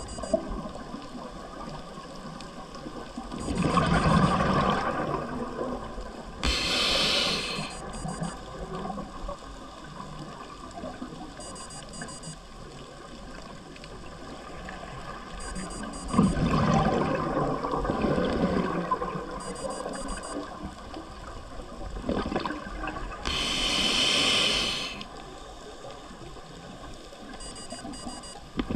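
Scuba diver breathing through a regulator underwater: short hissing inhales alternate with longer bubbling exhales, over steady water noise.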